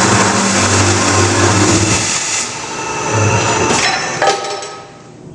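Scotchman CPO 315 HFA-CNC cold saw's 315 mm blade cutting through 1-1/2 inch tubing with a loud, dense grinding noise over a pulsing motor hum. The cut ends about two and a half seconds in, followed by a couple of short knocks.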